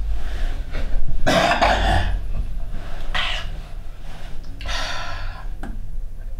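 Three rough, breathy throat sounds from a person, the first the loudest and longest, about a second and a half apart, over a low steady hum.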